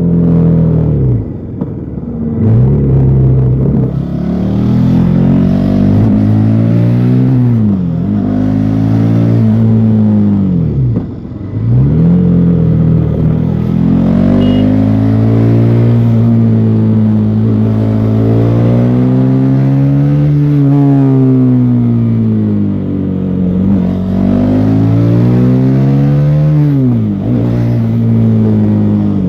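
Bajaj Pulsar NS400Z's single-cylinder engine running through its stock exhaust while the bike is ridden. The engine note climbs and falls again and again, with several sudden drops in pitch as the throttle is rolled off or gears are shifted.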